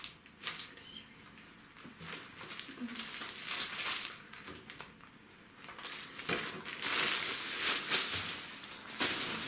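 Plastic packaging and a thin plastic shopping bag rustling and crinkling as groceries are handled: softer crinkles of a plastic-wrapped napkin pack first, then louder rustling from about six seconds in as a hand rummages in the bag.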